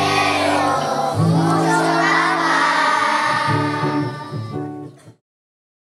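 A group of young children singing a song together, held sung notes with changing pitch; the singing dips and then cuts off suddenly about five seconds in.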